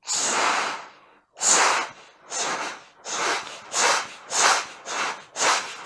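A man imitating a train's chugging with his mouth, blowing voiceless 'cha-fa' puffs of air through a hand cupped at his lips. One long hiss is followed by a run of rhythmic puffs that speed up to about two a second, like a train pulling away.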